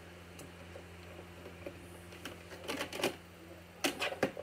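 A plastic VHS clamshell case and cassette being handled as the tape is taken out: a few faint clicks, then two clusters of sharper plastic clicks and rattles near the end. A steady low hum runs underneath.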